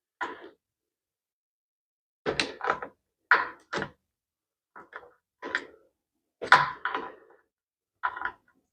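Hand tools and metal brake parts knocking and clanking, about ten separate short knocks, some with a brief metallic ring, as the motorcycle's hydraulic rear-brake hardware is worked off.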